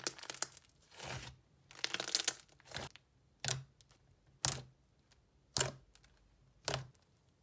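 Hands squeezing and pressing fluffy slime, making wet squishing sounds. A close cluster of squishes in the first three seconds is followed by four separate presses about a second apart.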